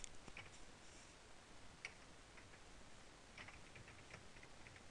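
Faint computer keyboard typing: soft, irregular key clicks.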